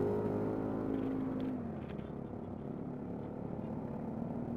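Yamaha NMAX scooter's bored-up single-cylinder engine running under way, its pitch falling as it eases off over the first second and a half, then running steady at a lower speed.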